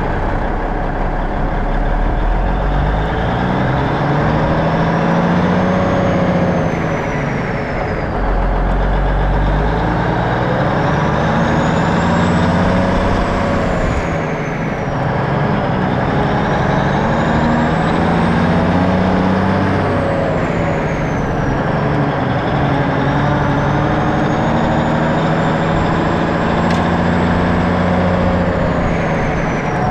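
A 1984 Freightliner cab-over's Cummins diesel pulling on the road, climbing in revs and dropping back at three gear shifts, with a high whistle that rises and falls with the revs.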